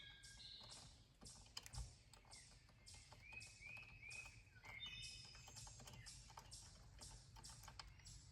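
Faint, irregular clicking of hand tools working the accelerator pump's bolts on a Mercury outboard, with a few short bird chirps about halfway through.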